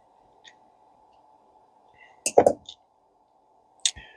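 Small parts of a spinning reel handled on the bench: a faint click, then a quick cluster of sharp clicks and a knock about two seconds in, and one more click near the end.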